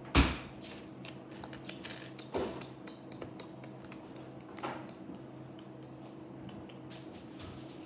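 Small hard plastic Lego pieces clicking and clattering as they are picked through and handled, with a sharper knock just after the start and two more about two and a half and five seconds in.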